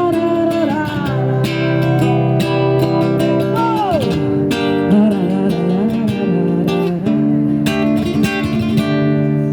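Acoustic guitar strummed steadily under a woman's singing voice, which holds a note and slides down in wordless phrases between sung lines.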